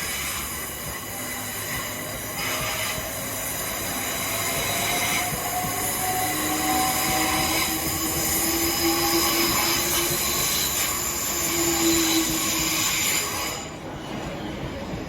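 A Class 376 Electrostar electric multiple unit passing close by, very noisy, with several steady high-pitched tones over the rumble of the train and a faint pitch rising slowly through the middle. The sound falls away sharply near the end as the train clears.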